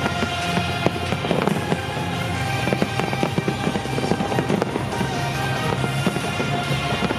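Fireworks finale: many shells bursting at once in a rapid stream of bangs and crackling, with music playing alongside.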